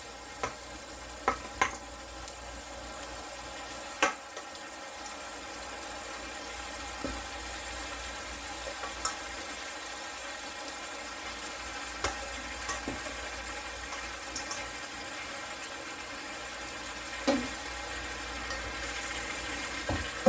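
Sauce sizzling steadily in a cast-iron tagine on the stovetop, with a few sharp clicks of metal tongs against a stainless steel bowl and the pot as chicken pieces are put back in.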